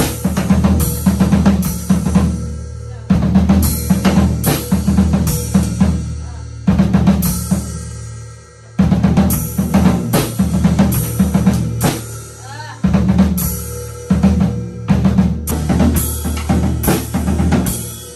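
Pearl acoustic drum kit played with sticks: a steady groove of bass drum, snare and cymbal crashes. It runs in phrases that each open on a loud crash and fade, with short dips every few seconds.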